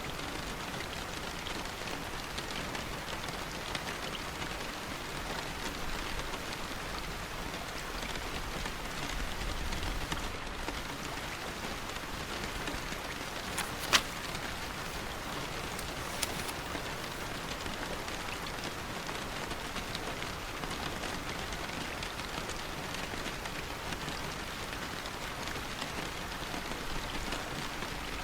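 Steady rain falling, an even patter, with one sharp tap about halfway through and a fainter one a couple of seconds later.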